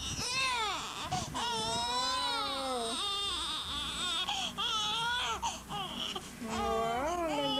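Newborn baby crying: about five long cries, each rising and falling in pitch, with short breaks for breath between them.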